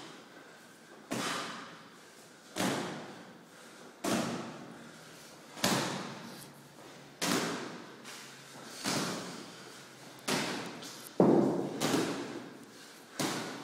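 Heavy training sandbag landing again and again on the lifter's shoulders, about one thud every second and a half, each one trailing off in the echo of the hall.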